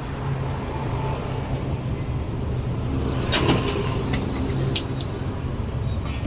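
Steady low rumble of running road vehicles, with a sharp click about three and a half seconds in and a smaller one near five seconds.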